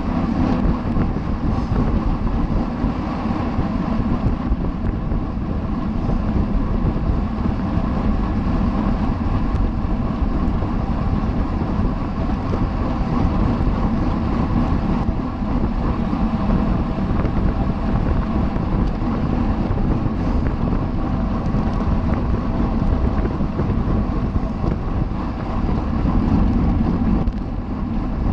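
Steady wind rushing over the microphone of a bicycle-mounted camera while riding at race speed, with a faint hum of the bike's tyres and drivetrain underneath.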